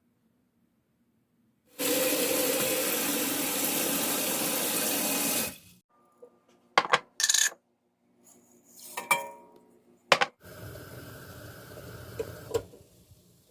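Water running hard from a tap for about four seconds, then shuts off. A few sharp clinks of dishes or utensils follow, then a second, quieter run of water that ends with a clink.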